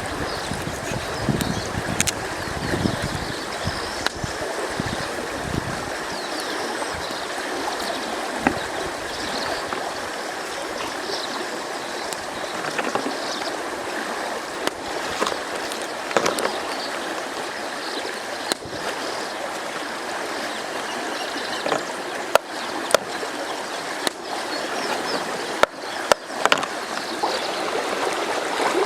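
Flowing river water rushing steadily, with scattered sharp clicks and taps throughout and a low rumble during the first few seconds.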